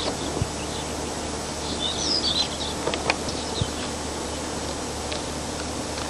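Outdoor village ambience: a steady background hiss with a few short, high bird chirps about two seconds in, and a handful of faint clicks.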